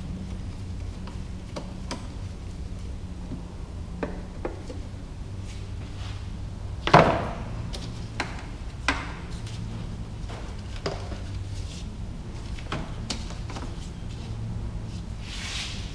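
Scattered knocks and clicks of hand tools and metal parts being handled in a car's engine bay, with one sharper knock about seven seconds in, over a steady low hum.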